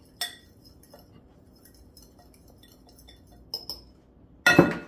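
A metal fork stirring a dry spice rub in a glass bowl: light scraping ticks and a few sharp clinks of fork on glass, then a louder clatter near the end.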